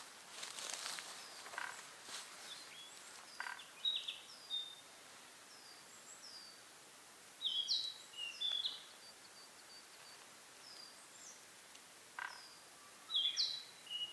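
Wild songbirds calling in woodland: a steady series of thin, high, falling notes, with louder sharp chirps twice, about halfway through and near the end. A brief rustle comes near the start.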